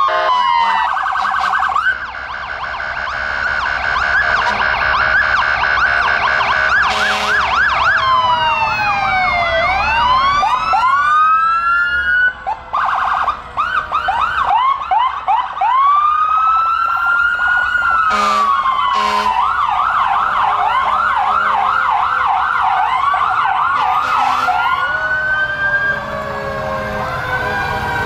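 Several emergency-vehicle sirens sounding together from a line of passing ambulance and fire trucks, slow rising-and-falling wails overlapping fast repeated yelps. A few short blasts cut in on top.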